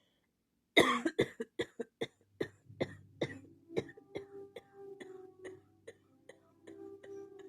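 A person in a coughing fit: a rapid string of short, sharp coughs, about three to four a second, loudest at the start and growing weaker. A steady pitched tone runs under the later coughs.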